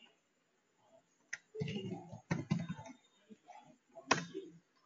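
Typing on a computer keyboard: a scattered run of keystroke clicks, the strongest a little after four seconds.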